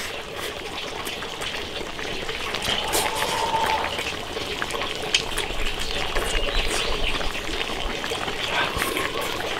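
Liquid trickling and bubbling in a hot iron wok of braised fish, a steady wet hiss with scattered small clicks.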